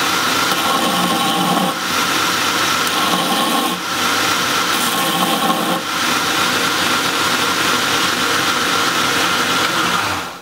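Belt grinder running as a cast iron pipe tee is held against its flat platen, grinding down the casting's raised parting line. The grinding dips briefly three times and cuts off near the end.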